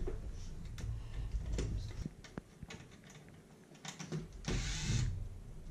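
Clicks and knocks of plastic and metal parts of an old Sony radio being worked loose by hand during disassembly, with a low hum for the first two seconds and a short scraping rasp about four and a half seconds in.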